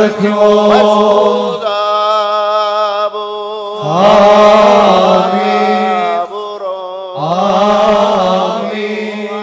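Male clergy chanting a Malankara Orthodox liturgical response in three long held phrases with short breaths between.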